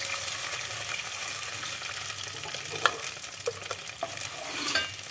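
Blended paste of shallots, garlic, bird's eye chillies and fresh turmeric sizzling and frying in hot oil as a spatula stirs it round the pot. A few sharp taps of the spatula on the pot, the loudest about three seconds in.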